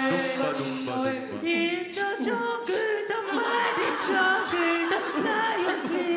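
A small mixed group of men and a woman singing a cappella in parts into handheld microphones, several voice lines sounding together with held notes under moving melody.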